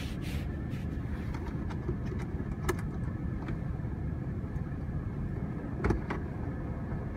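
Two sharp plastic clicks as the overhead console's spring clips are pulled loose, the louder one about six seconds in, over a steady low rumble.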